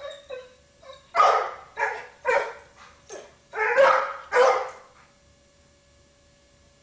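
Yellow Labrador retriever giving a string of loud play barks, about six strong ones over the first five seconds, while jumping at a balloon; the barking stops about five seconds in.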